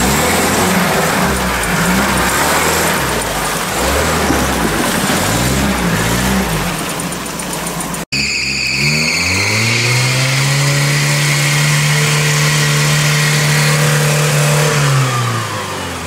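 UAZ off-road 4x4 engine revving up and down in mud, the revs wavering. After an abrupt cut, an engine revs up hard, holds at high revs for about five seconds with a high whine above it, then drops back.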